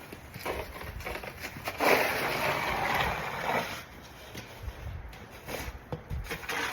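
Scraping and crunching in slushy snow, loudest for about two seconds in the middle, with scattered knocks around it.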